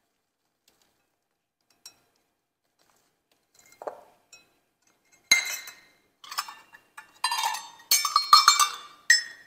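Graham cracker crumbs tipped softly from a metal measuring cup into a glass bowl, then a run of about six sharp, ringing clinks as metal measuring cups and spoons are handled against each other and the dishes.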